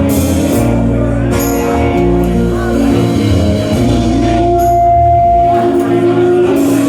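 Live rock band playing an instrumental passage, with cymbal hits every second or two over bass and guitar, and a long held lead note a little past the middle.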